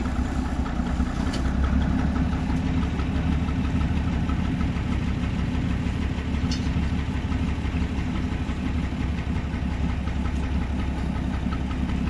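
Narrow-gauge diesel switcher locomotive's engine idling steadily.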